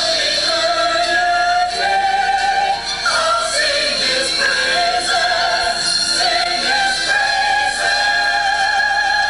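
Church choir of men and women singing together in long held notes that step from one pitch to the next every second or two.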